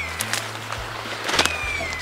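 Background music: low held bass notes that step between pitches, with short, slightly falling high notes, and a few sharp clicks, the loudest about a second and a half in.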